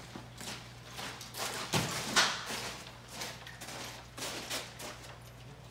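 Long wooden strips knocking and clattering as they are carried and handled, with the loudest knocks about two seconds in, over a steady low hum.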